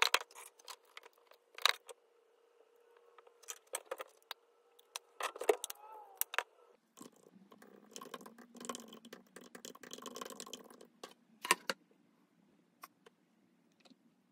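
Scattered clinks and knocks of cookware and a bowl being handled, then, after a cut, a run of soft clicking from typing on a computer keyboard, with a sharp clink near the end.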